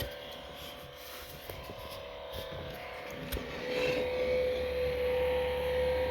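Acer Predator Helios 300 gaming laptop's cooling fans running at their lowest speed, about 2200 RPM, with a steady whine that gets louder a little past halfway; a few light clicks earlier on. The owner puts the annoying noise down to dust on the fan blades unbalancing their spin.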